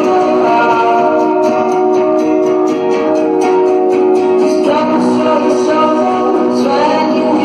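Loud music with a singing voice over guitar, played on a car sound system.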